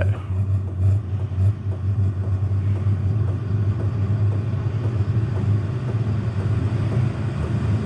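Diesel air heater in its start-up cycle, a steady low hum from its fan running before the flame catches.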